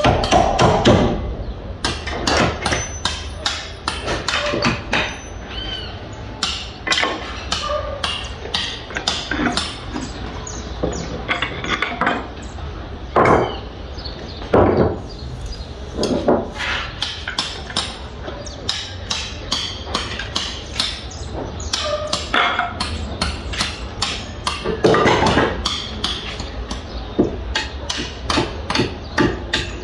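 Construction-site hammering: irregular hammer blows, several a second, over a steady low rumble.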